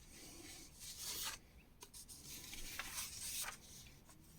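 Paper pages of a magazine rustling and sliding as they are turned, in two swishes about a second in and about three seconds in, with a few light clicks between.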